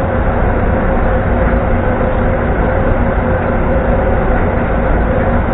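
Hong Kong double-decker electric tram running along the track: a steady rumble with a steady whine over it.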